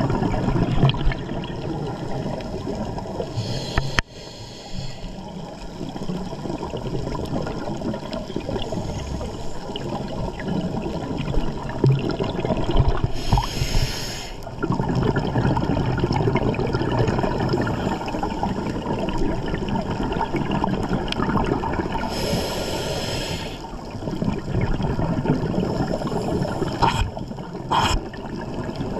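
Underwater sound of a scuba diver breathing through a regulator: four bursts of hiss and bubbling several seconds apart, over a steady low water rumble.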